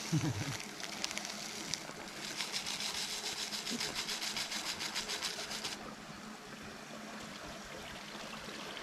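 Small moorland river flowing steadily. For a few seconds in the middle a fast rhythmic patter sits over the water sound.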